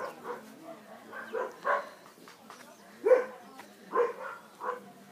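A dog barking in a series of short, pitched barks, irregularly spaced, the loudest about three seconds in.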